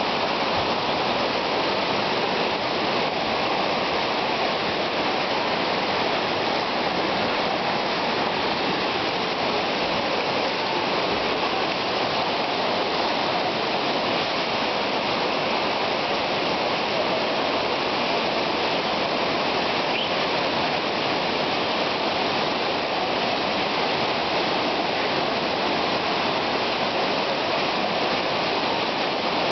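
Fast-flowing floodwater rushing through a street in a steady, unbroken torrent, strong enough to push a car and sweep away a rubbish bin.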